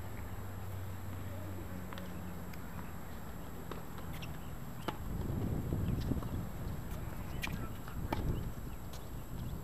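Tennis balls struck by rackets and bouncing on a hard court: sharp single pops, roughly a second apart, loudest around the serve about five seconds in. A low rumble rises from about five seconds in.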